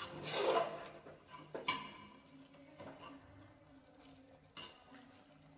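A spoon stirring chicken curry in a pressure cooker pot, scraping and clinking against the pot during the first second, followed by two sharp clicks spaced a few seconds apart.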